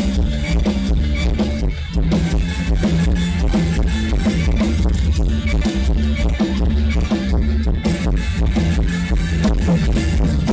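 Loud music with heavy bass and a steady beat.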